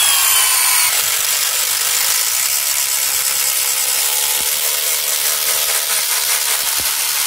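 Milwaukee M12 Fuel 3453 impact driver impacting steadily at its third speed setting, driving a Hilti step drill bit through 4.5 mm steel angle.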